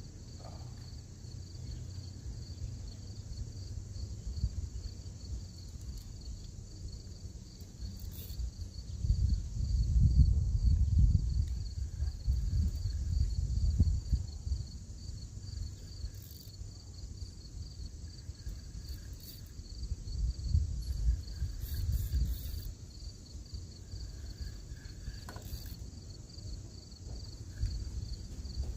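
A steady insect chorus, a continuous pulsing high trill, over a low rumble that grows louder about a third of the way in and again past the middle.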